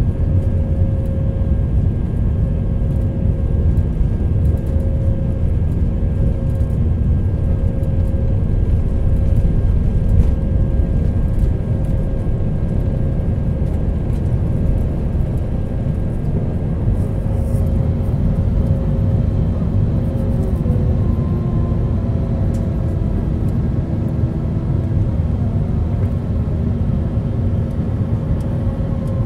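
Jet airliner's engines at takeoff thrust heard from inside the cabin: a loud, steady rumble with a droning tone through the takeoff roll and initial climb. About two-thirds of the way in, fainter tones slide downward.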